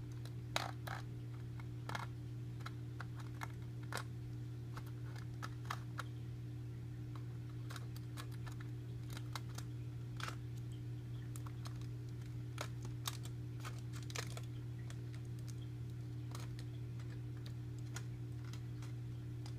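Sharp knife cutting and picking at aluminium foil pressed over a die-cast car body: irregular small clicks and scratches, a few at a time, over a steady low hum.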